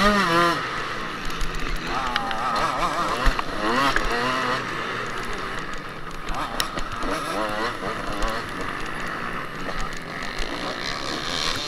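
Onboard recording of a two-stroke motocross bike (a Kawasaki KX125) racing on a dirt track, its engine revving up and down in repeated rising and falling sweeps through the corners, with wind noise on the microphone.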